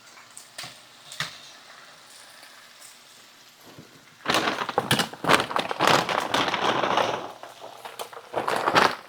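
French fries frying in hot oil: after a few faint clicks, a loud crackling sizzle starts suddenly about four seconds in, eases off, and flares again near the end.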